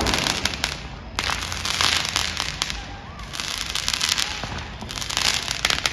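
Fireworks crackling in dense clusters of small pops, thinning out and swelling again several times.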